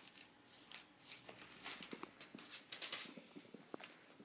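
Faint, scattered rustles and light taps from two six-week-old Yorkshire terrier puppies playing among newspapers on carpet.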